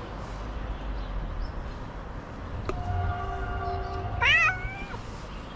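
Orange stray cat meowing once near the end, a short call that rises sharply and then falls. Just before it, from about halfway in, a steady tone lasts about a second and a half.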